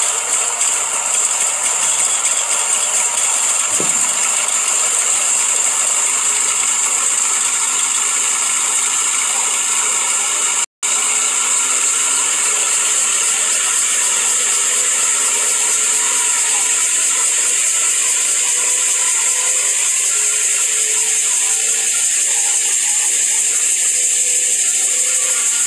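Small engine of a homemade helicopter running steadily with a loud rattling hiss. The sound cuts out for a moment about ten seconds in. After that its pitch climbs slowly as the engine speeds up.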